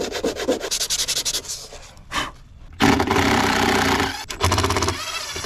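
Rapid back-and-forth scraping at old silicone on an aluminium boat transom for about the first two seconds. From about three seconds in, a cordless drill runs in two spells of about a second each.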